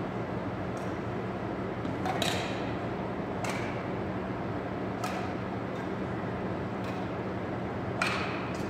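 Badminton shuttlecock struck back and forth by rackets in a rally: about five sharp hits a second or two apart, over a steady background hum in a large gym hall.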